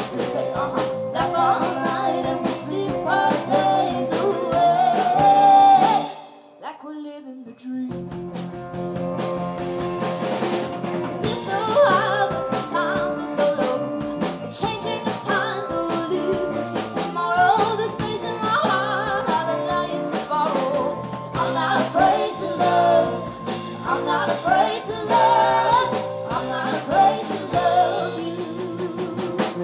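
Live pop-folk band playing with drum kit, electric guitars and keyboard, with singing over it. About six seconds in, the band drops out suddenly for a second or two, then comes back in full.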